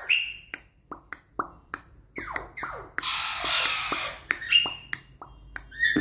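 Young green parakeet chattering: quick clicks, short whistled notes and falling squeaks, with a longer raspy, hiss-like sound about three seconds in. These are a young parrot's first attempts at making talking sounds.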